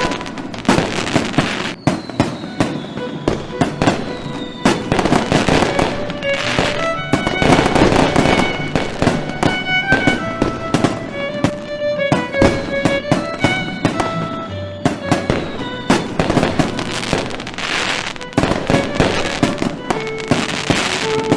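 Fireworks crackling and bursting in dense, rapid bangs over background music with held string-like notes, with two long falling whistles, one a few seconds in and one about halfway.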